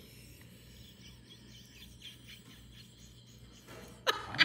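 Faint, repeated high chirping in a quiet room. About four seconds in, a woman breaks into laughter.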